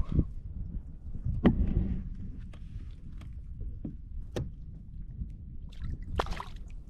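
Scattered knocks and clunks of gear being handled aboard a fishing kayak, about four sharp ones, over a steady low rumble.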